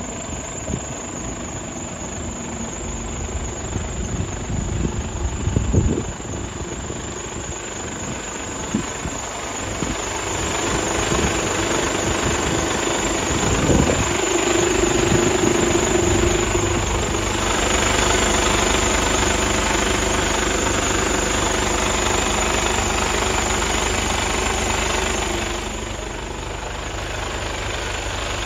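Mercedes-Benz Actros 1843 tractor unit's six-cylinder diesel engine idling steadily. A few sharp knocks come in the first half. The engine grows louder about a third of the way in and drops back near the end.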